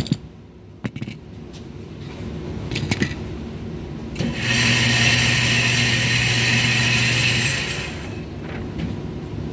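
Electric motor of a shooting range's target carrier running steadily for about three seconds, starting about four seconds in, with a low hum and a hiss. A few sharp clicks come before it.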